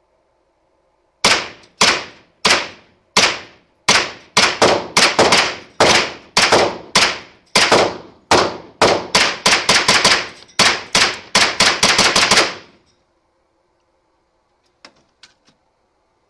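Colt AR 9mm carbine fired semi-automatically in an indoor range: about thirty shots, a few spaced out at first and then a steady string of two to three a second, each echoing briefly off the walls. A few faint clicks follow near the end.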